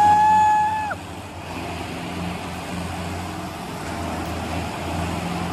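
Diesel tractor engines running with a steady low drone. It opens with a loud, high, held tone lasting just under a second that rises at the start and drops away at the end.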